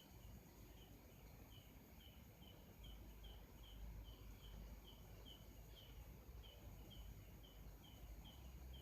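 Faint, regular high-pitched chirps, about two to three a second, from a small animal, over a low background rumble.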